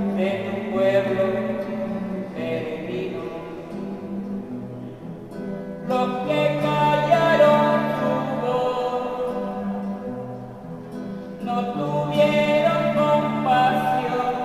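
A man sings to an acoustic guitar he strums himself, a devotional song sung in three long phrases with short, quieter gaps between them.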